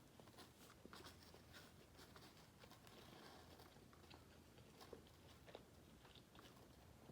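Faint chewing: soft wet mouth clicks and small crackles of someone eating fast food, close to the microphone.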